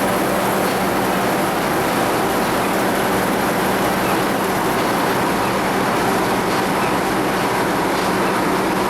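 A 1969-built sawmill's machinery running steadily: a loud, even mechanical din with a constant hum underneath.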